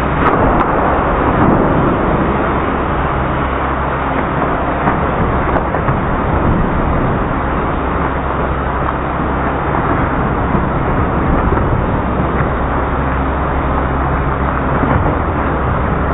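Automatic car wash running: a steady rushing noise with a low hum underneath.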